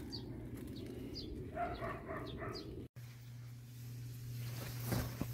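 Outdoor garden ambience of steady low background noise with faint, short high bird chirps. About a second and a half in, a distant animal calls three times in quick succession. The background changes abruptly about three seconds in, and there is a soft knock near the end.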